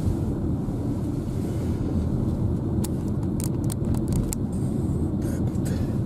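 Steady low rumble of engine and tyre noise inside the cabin of a car driving slowly along a village road. A few short, light clicks come about halfway through.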